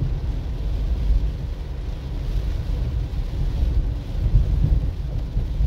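Cabin noise of a Suzuki Swift driving on a wet road in rain: a steady low rumble with a fainter hiss of tyres on the wet surface.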